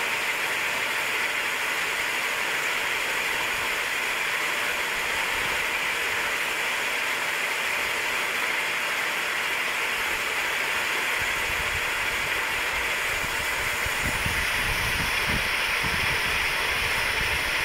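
Pond aerators running, a microbubble aerator together with paddlewheel aerators: a steady hissing rush of churned, bubbling water. A low buffeting rumble joins in a little past the middle.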